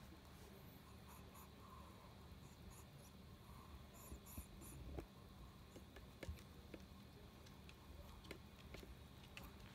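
Near silence: room tone with faint, scattered light ticks, growing more frequent in the second half as a Chihuahua's claws click on a wooden floor while it walks.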